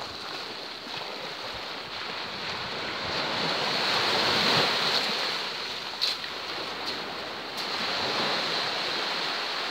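Small surf waves breaking and washing up the shore in a steady rush that swells about halfway through.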